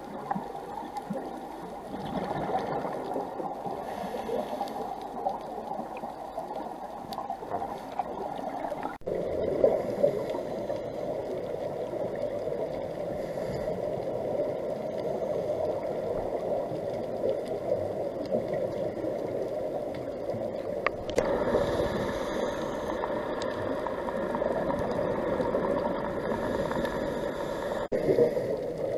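Underwater sound picked up by a camera in its housing: a steady, muffled rush of water with faint scattered crackles. The sound changes abruptly about a third of the way in, again about two-thirds in and once more near the end.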